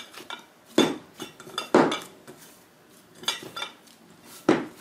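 Soft bread dough being kneaded by hand in a glass bowl: a series of irregular knocks and soft squelches as the fist presses the dough down against the glass, with a short lull in the middle.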